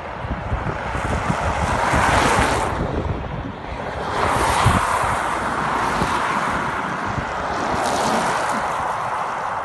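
Road vehicles passing close by: three swells of tyre and engine noise, about two, four and a half and eight seconds in, with wind buffeting the microphone throughout.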